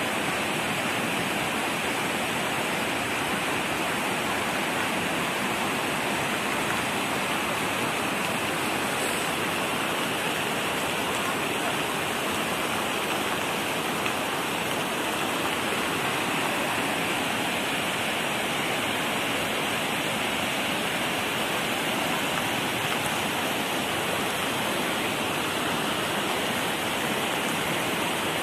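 Cloudburst flash flood: a torrent of muddy water carrying rocks and debris rushing down a road, a steady, unbroken rush of water.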